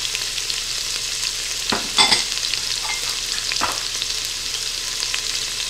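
Diced chicken breast frying in hot oil in an Instant Pot's stainless inner pot on the sauté setting: a steady sizzle with fine crackling, and a few brief louder clicks about two seconds in.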